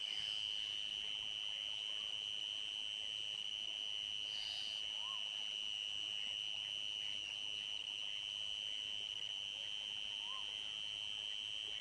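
Crickets trilling in a steady, continuous chorus: one high, even tone. Two faint short calls rise and fall beneath it, about five and ten seconds in.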